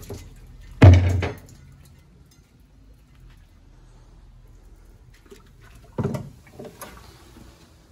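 Brake calipers hung on a wire being shaken off over a drum of paint stripper and dunked into a bucket of neutralizing water: a loud, heavy knock and splash about a second in, and another shorter splash around six seconds, with a few small clicks after it.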